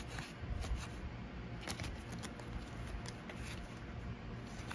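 Stiff game cards being slid apart and flipped through by hand, with scattered soft clicks and rustles of card stock.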